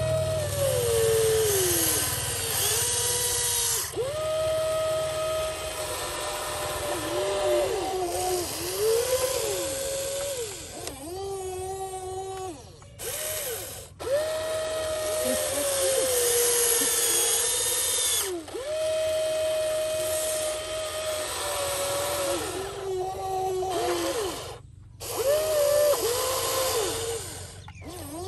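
A Huina RC excavator's electric motors and gearboxes whine as it works its boom, arm and bucket. Each movement is a steady whine that rises in pitch as it starts and sags as it stops, changing note from one movement to the next, with brief pauses between.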